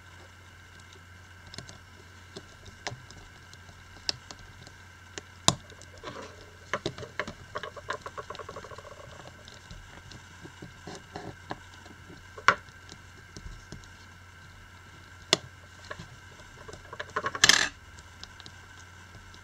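Small hard plastic clicks and taps as the Xperia Z1's frame is pressed together by hand, with a quick run of ticks in the middle and a few sharper clicks. A short scrape comes near the end.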